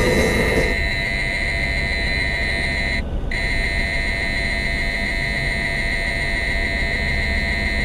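A steady, high electronic alert tone from an in-car warning device, with one short break about three seconds in, over the car's steady road noise.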